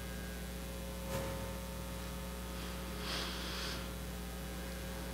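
Pause in speech: room tone with a steady low electrical hum, and a faint breath about three seconds in.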